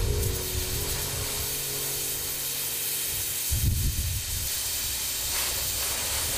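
Gas torch flame hissing steadily while brazing bronze rod joints, with a low rumble that swells briefly about three and a half seconds in.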